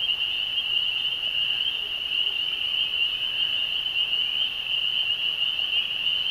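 A chorus of frogs calling, a steady high-pitched din that keeps on without a break.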